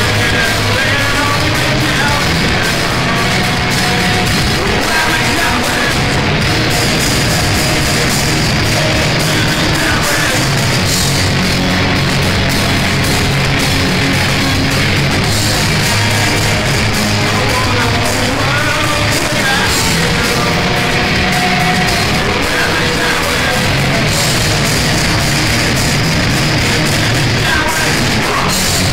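Loud live grunge band playing a song: distorted electric guitars, bass and drums.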